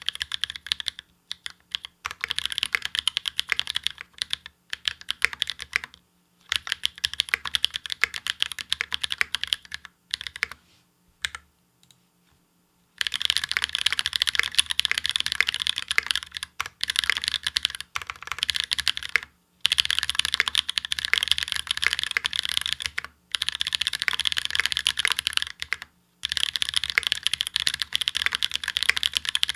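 Fast typing on a Space65 R1 65% mechanical keyboard with Holy Panda tactile switches and GMK Apollo ABS keycaps. The keys are struck in rapid runs of a few seconds, broken by short pauses, with a longer lull of about three seconds and only a few single key presses about a third of the way in.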